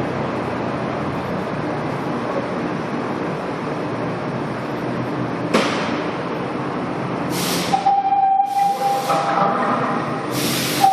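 SEPTA Broad Street Line subway train in the station: a steady running noise for about five seconds, a sharp click, then three short hisses of released air and a steady high tone held for about two seconds.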